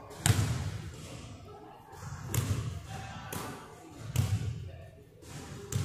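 Basketball bouncing on a hardwood gym floor: five separate bounces spread unevenly over a few seconds, each echoing in the large hall.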